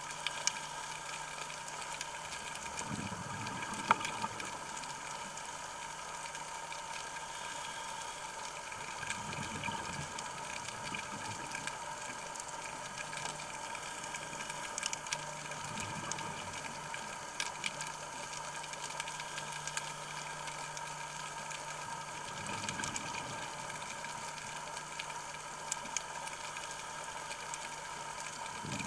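Underwater sound from a diver's camera: the diver's exhaled scuba bubbles rumble briefly about every six to seven seconds over a steady electrical hum, with scattered faint clicks.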